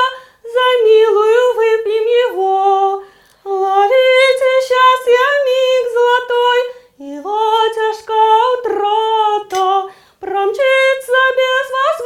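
A high female voice singing unaccompanied, in four sung phrases separated by short breaths.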